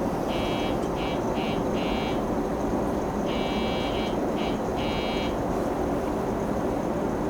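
An electronic buzzer sounds in two matching groups about three seconds apart, each a long buzz followed by shorter ones, over the steady low hum of a stopped train.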